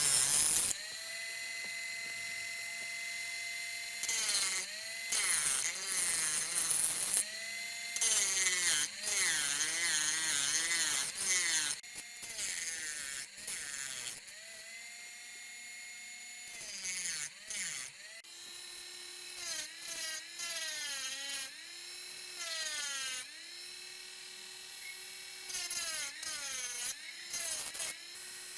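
A small high-speed electric power tool running in stretches, its whine sagging in pitch and recovering as it bites into the respirator's plastic exhalation valve housing to cut it open.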